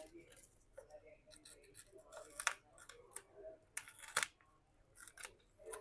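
Irregular sharp clicks and cracks as the old display of an Honor X9a 5G is forced off the phone's frame, its hard adhesive and glass snapping as it gives way. The loudest cracks come about two and a half and four seconds in.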